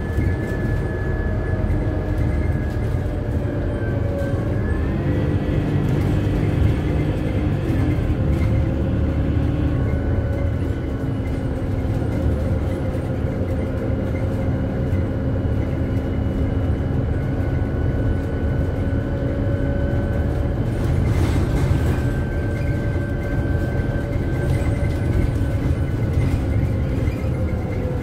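Interior sound of a Scania CityWide LF CNG city bus under way: a steady low rumble from its compressed-natural-gas engine and running gear, with whining tones from the drivetrain that slowly shift in pitch as the bus changes speed. A brief knock or rattle comes about two-thirds of the way through.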